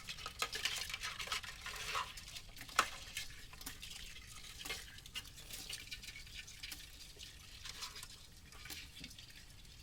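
Irregular wet pattering, ticks and small splashes of water from freshly caught small fish and a wet fishing net. The sounds are busiest in the first few seconds, with one sharper tick about three seconds in, then thin out.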